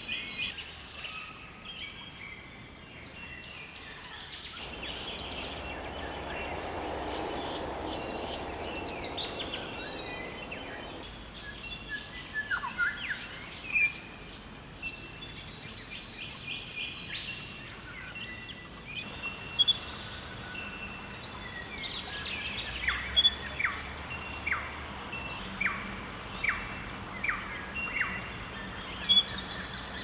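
Wild birds calling and chirping in bushland, with many short high notes. In the last third there is a run of sharp, quickly falling calls about one a second, louder than the rest, and a soft rushing noise for several seconds near the start.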